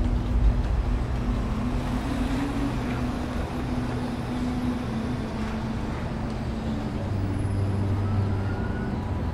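Steady city traffic rumble with a few long, held low notes underneath that change pitch a couple of times.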